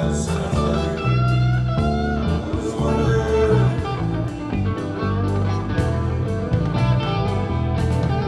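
Background music: blues guitar, with notes sliding in pitch.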